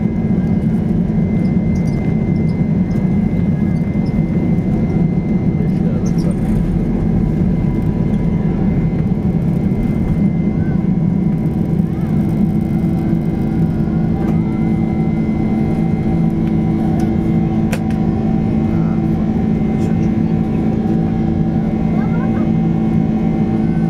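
Cabin noise of a Boeing 767-300ER at takeoff thrust, heard from a window seat over the engine: a steady, loud jet-engine rush with several steady hum tones, through takeoff and initial climb.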